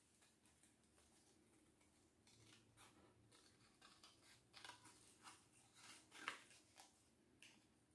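Scissors cutting out a shape from thin card: faint, irregular snips, starting about two seconds in, with one louder snip a little after six seconds.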